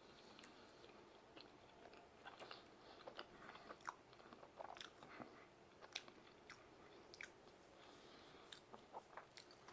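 Faint chewing of a mouthful of brisket pizza: scattered soft clicks and smacks of the mouth, a few every second.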